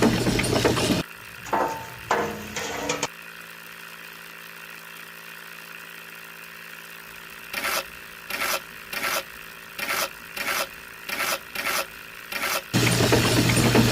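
Small electric motor of a homemade mini cement mixer running loudly, cutting out about a second in. After a quiet stretch there is a string of about ten short bursts, then the motor runs steadily again near the end.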